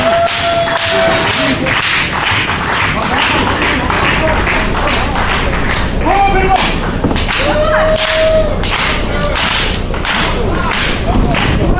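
Sharp slaps and thuds from a pro wrestling match, several a second, under continuous crowd noise, with long held shouts from the crowd near the start and again around two-thirds of the way through.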